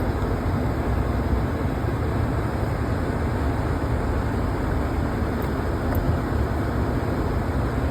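Truck engine running steadily as the truck pushes a plastic snowplow through wet snow, heard as a continuous low rumble and hiss.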